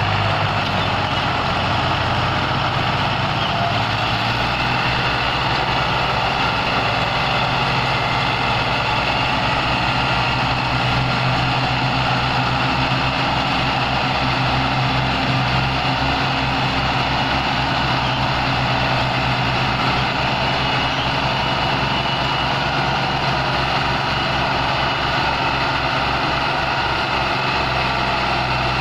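Diesel tractor engines of a Belarus 510 and a Massey Ferguson 260 running steadily under heavy load while pulling a fully loaded trolley through soft soil.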